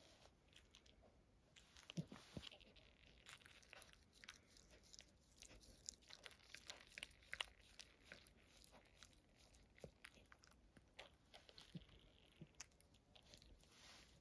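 A mother dog licking and nibbling at her newborn puppy: faint, irregular wet smacking and clicking sounds.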